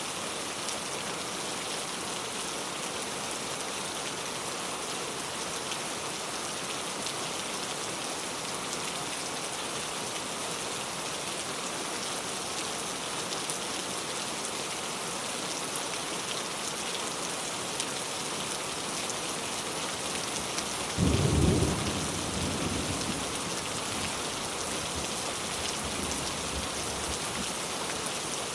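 Steady rain falling, with one loud clap of thunder about three-quarters of the way through that rumbles off over a couple of seconds.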